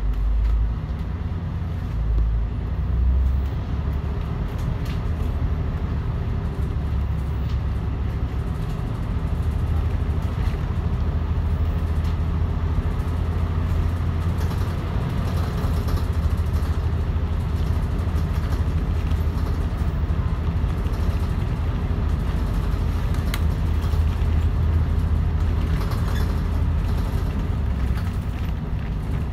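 Volvo D10A-285 diesel engine of a Volvo Super Olympian double-decker bus running under way, heard from inside the bus, with the loud whir of its radiator cooling fan. The low engine hum grows louder about nine seconds in.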